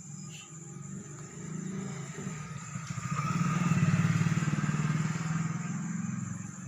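A motor vehicle engine passing by, growing louder to a peak about four seconds in and then fading.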